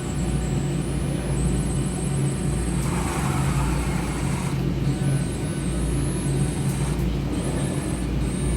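Radio-controlled model excavator and truck running: a steady low engine-like rumble, with a high-pitched electric motor whine that cuts in and out and steps in pitch.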